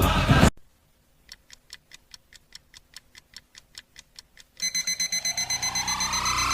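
Loud music cuts off about half a second in, then a faint, fast clock-like ticking, about five ticks a second. Near the end, a loud pulsing electronic alarm tone starts and rises in pitch.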